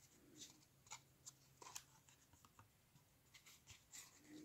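Faint, irregular ticks and rustles of cardboard trading cards being slid off a hand-held stack and moved one by one to the back.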